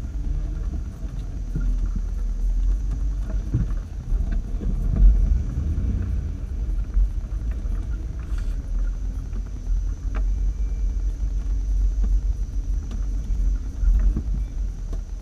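A 4x4's engine and drivetrain running at a slow trail crawl, a steady low rumble. A few sharp knocks and rattles from the body and suspension come over rough ground, one about a third of the way in and two more in the second half.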